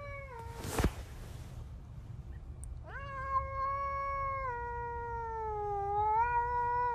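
Cat yowling: one long drawn-out call of about four seconds starting about three seconds in, dipping in pitch and rising again near the end. Before it, an earlier call trails off at the start and a single sharp click sounds about a second in.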